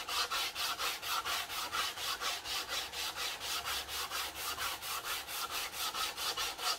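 180-grit sandpaper on a flat wooden sanding block, rubbed back and forth along the grain of a wooden board. The strokes come in a steady rhythm of about four or five a second.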